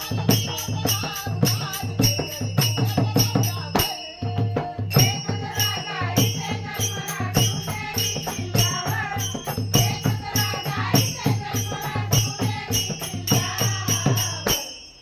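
Music from a devotional song with no words: a fast, steady beat with jingling tambourine-like percussion under a melody line. It breaks off briefly about four seconds in, then carries on.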